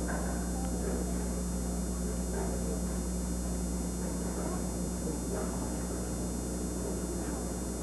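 Steady electrical mains hum on an old analogue broadcast recording, with faint background voices from the bowling alley.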